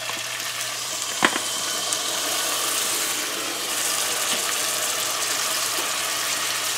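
Coconut milk poured through a metal strainer into a pot of hot oil and curry paste, splashing and sizzling steadily as it fills around the stuffed bitter melons, with a single sharp clink about a second in.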